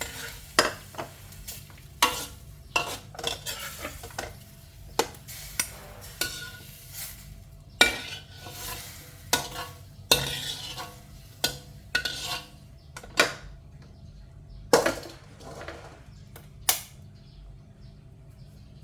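A scooping utensil clinking and scraping against a cooking pot as blanched pork liver is scooped out: a series of sharp clinks roughly once a second that stops after about 17 seconds.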